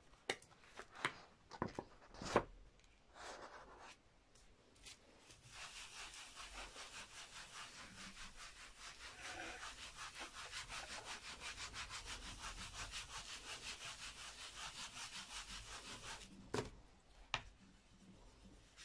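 A few light taps and paper sounds, then a bamboo-covered baren rubbed in quick, even strokes over the back of printing paper laid on an inked lino block for about ten seconds, pressing the ink into the paper. The rubbing stops and two sharp knocks follow.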